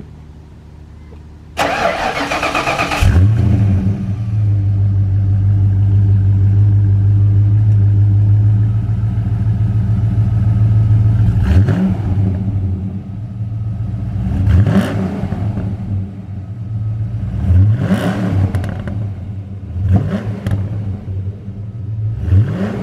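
1993 Ford Mustang Cobra's 5.0-litre V8 cold-started, heard at the exhaust tips: the starter cranks for about a second and a half before the engine catches, it holds a steady fast idle for some eight seconds, then the throttle is blipped five times, each a short rise in revs. Through JBA shorty headers, a stock four-cat H-pipe and a 2.5-inch Dynomax cat-back, the exhaust sounds raspy.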